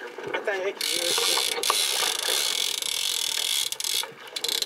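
Fishing reel's drag buzzing as line is pulled off it, starting about a second in and cutting off sharply about three seconds later: a hooked tuna taking line.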